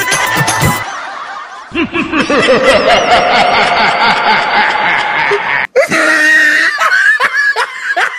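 Laughter. Dense, layered laughing begins about two seconds in and cuts off suddenly near six seconds. Rhythmic bursts of 'ha-ha' laughter follow, about two a second.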